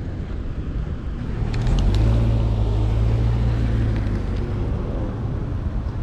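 A car driving past close by: a low, steady engine hum comes up about a second and a half in and fades away after about four seconds.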